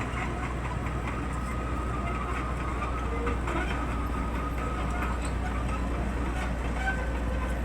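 Small excavator's diesel engine running steadily, with light metallic clanks and rattles over the low hum.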